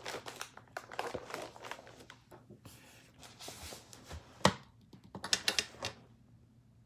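Paper and card being handled: rustling and crinkling with scattered light clicks and taps, a sharp knock about four and a half seconds in, then a quick run of taps.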